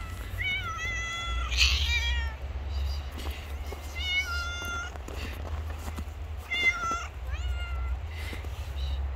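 Stray cats meowing over and over: a string of long, drawn-out meows, several rising in pitch at the start, coming every second or two.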